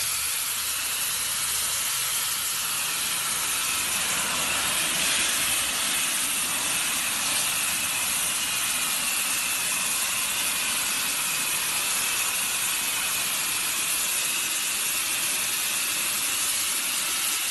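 Pressure washer jet hissing steadily as it blasts grime off a concrete sidewalk.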